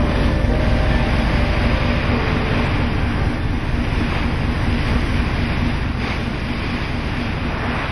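Wind buffeting the microphone aboard a boat at sea, over the rush of waves and a steady low engine hum.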